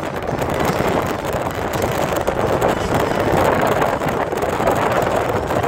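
A moving car's steady rush of wind and road noise, heard from inside the cabin, with wind on the microphone.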